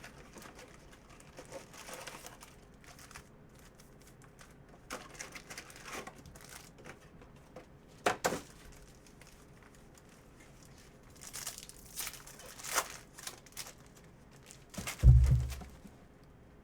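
Plastic wrapping crinkling and tearing in scattered short bursts as a sealed trading-card box and its first pack are opened. A dull thump near the end is the loudest sound.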